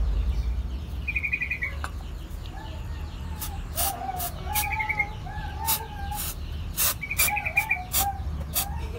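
Birds calling: a quick high trill three times and lower warbling notes through the middle. From about three and a half seconds in, a string of short hissing squirts from an aerosol spray can of paint remover.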